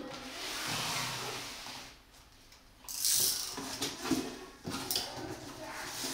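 Cardboard carton being opened: a blade hisses along the packing tape seam, then about three seconds in the flaps are pulled apart with a loud rip. Several sharp knocks and rustles of stiff cardboard follow as the flaps are folded back.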